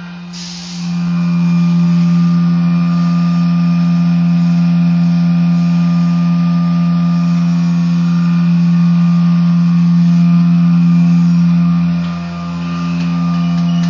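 Vacuum feeder running in a flour test, its electric motor giving a loud, steady hum. A short hiss comes just before the hum swells about a second in, and the hum dips briefly near the end before coming back.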